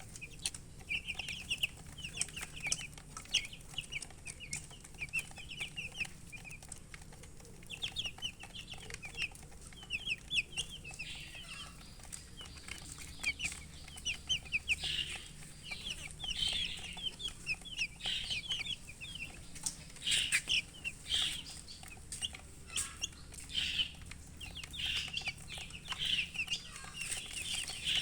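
Baby chicks peeping: many short, high chirps in quick runs, busier and louder in the second half, with scattered sharp clicks among them.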